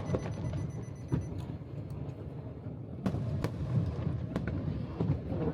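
Aerial fireworks bursting over the sea: irregular sharp bangs and cracks over a low, continuous rumble.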